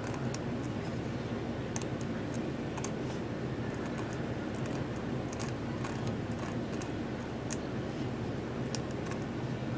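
Metal quill-pen nib ticking and scratching on glass in light, irregular clicks as fine enamel lines are drawn, over a steady low hum.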